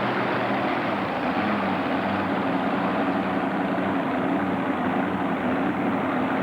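Mini modified pulling tractor's engine running steadily and loudly, with no clear rise or fall in pitch.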